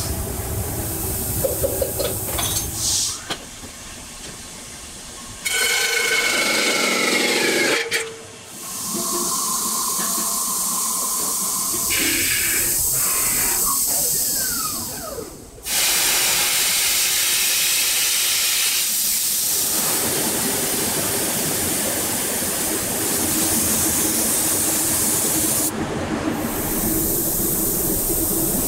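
Factory machine noise and loud hissing, cut together from several short stretches that start and stop abruptly. Two falling whines run through it, like a spinning machine winding down.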